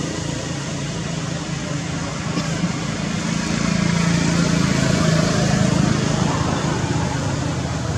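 A motor vehicle engine running, a steady low hum that grows louder in the middle and eases off toward the end, over a background of outdoor noise.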